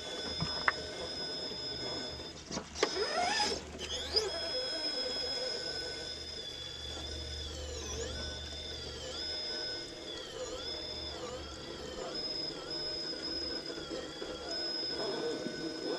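An RC rock crawler's 2000kv brushless motor and transmission whining under load as the truck climbs rock. The pitch sweeps up sharply about three seconds in, then dips again and again as the motor bogs against the ledge, with a few knocks of tyres and chassis on stone early on.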